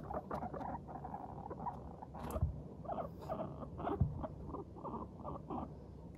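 Guinea pigs chutting as they walk: a steady run of short, soft 'pu-pu-pu' notes, several a second, the contented call of guinea pigs in a good mood while exploring. Two soft low thumps, about two and a half and four seconds in.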